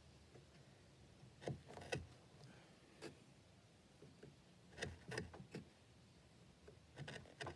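A sharp bench chisel paring wood by hand inside a bow tie inlay recess: short, quiet scrapes and clicks at irregular intervals as the edge shaves the walls and corners.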